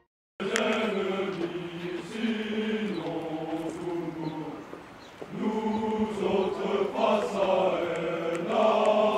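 A column of marching chasseurs singing a slow marching song in unison, men's voices holding long notes. It starts abruptly just after the start.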